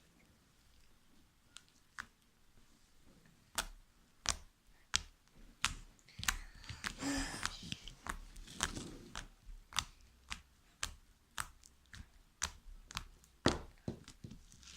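Glittery slime being pressed and spread by hand, making sharp wet clicks and pops about every half second from a few seconds in, with a longer squelching stretch around the middle.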